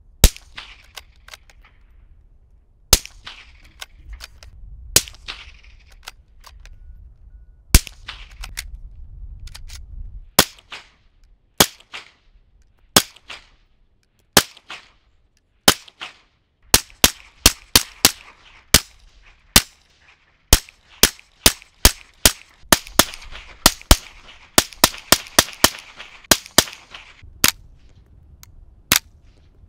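Suppressed rimfire gunshots through a Ruger x Dead Air RXD22Ti titanium suppressor: single sharp cracks a few seconds apart at first, then quick strings of two or three shots a second.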